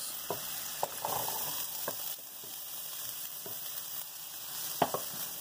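Diced bell peppers going into hot oil and butter with garlic and chili, sizzling steadily, with a few sharp knocks of a wooden spatula against the pan as they are stirred.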